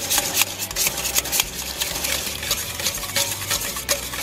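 Wire whisk beating mayonnaise and apple cider vinegar in a stainless steel bowl: rapid, repeated strokes of the wires clinking and scraping against the metal bowl through the wet sauce.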